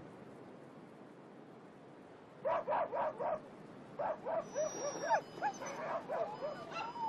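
Greenland dogs yipping and whining: after a faint start, a quick run of four yips comes about two and a half seconds in, then from about four seconds a string of short rising-and-falling yelps and whines, several overlapping.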